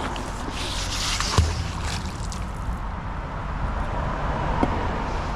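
Canal water sloshing and trickling as a magnet-fishing catch is hauled in, with one sharp knock about a second and a half in, over a steady low outdoor rumble.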